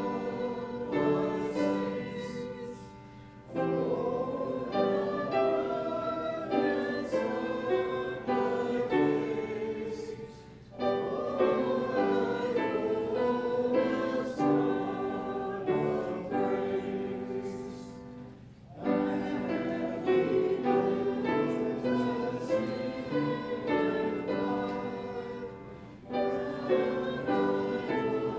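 Congregation singing a hymn, line by line, with brief pauses between phrases about every seven to eight seconds.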